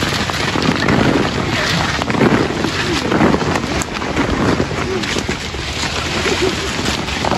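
Coffee branches and leaves rustling as ripe coffee cherries are stripped off by hand and patter down through the bush, with voices talking in the background.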